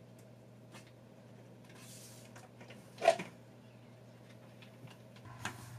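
Faint rustling and light clicks of wires being handled and fed into a CNC control cabinet, with one sharper knock about three seconds in, over a steady low hum.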